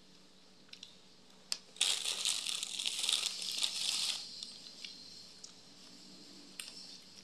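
Thin plastic wrapping crinkling and rustling under the fingers for about two seconds, starting a couple of seconds in. A few light clicks come before and after it.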